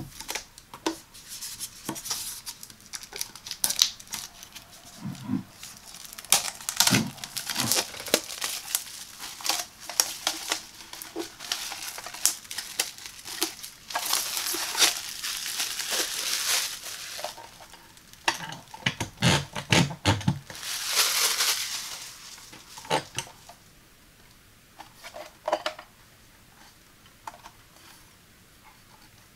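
Clear plastic wrap crinkling as it is peeled and torn off the glass top of a bathroom scale, mixed with sharp clicks and taps as the scale is handled. There are longer rustles in the middle, and the sounds thin out to a few faint taps in the last few seconds.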